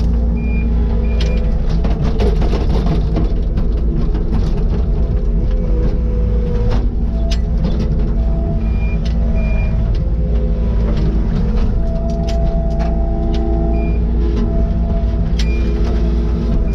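Takeuchi TL150 tracked skid steer running steadily, with a deep continuous drone under tones that rise and fall. A few short high beeps come in pairs now and then.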